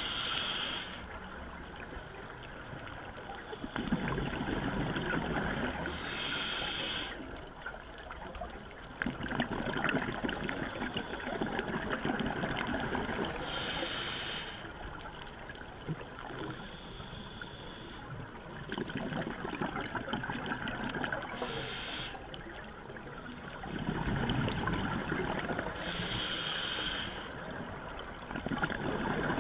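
Scuba diver breathing through a regulator, heard underwater: a short hiss on each inhale, then a longer bubbling rumble of exhaled air, repeating slowly about every seven or eight seconds.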